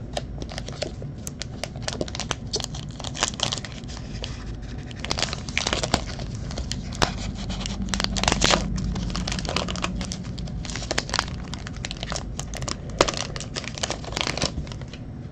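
Foil trading-card pack wrapper crinkling and being torn open by hand, with many small irregular crackles as the foil is pinched, ripped and handled.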